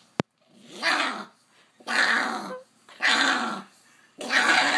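Pug growling in play while held on its back, in four drawn-out grumbling growls about a second apart. A sharp click comes just at the start.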